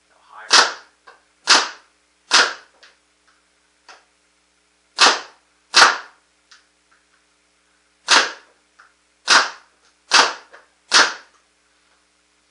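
Proto Matrix Rail (PMR) 2011 paintball marker, fitted with a 360 quick exhaust valve, firing nine single shots. Each shot is a sharp pop, spaced unevenly: three about a second apart, then two, then one, then three more near the end.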